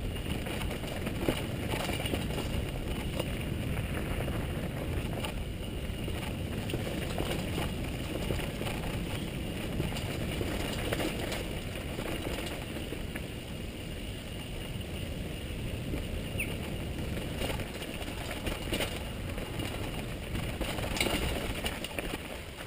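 Mountain bike rolling down a dirt and gravel trail, heard from a camera on the bike or rider: a steady rumble of tyres over the ground with scattered rattling knocks from the bike over bumps.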